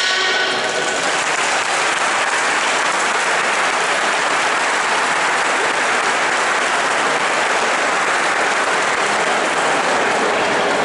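Audience applauding steadily at the end of a dance.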